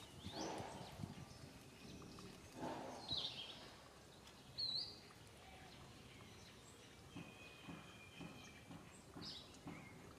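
Faint outdoor background with a few scattered, short animal calls; the loudest is a brief high chirp or squeak about halfway through.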